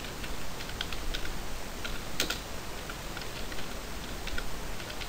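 Typing on a computer keyboard: scattered, irregular keystrokes.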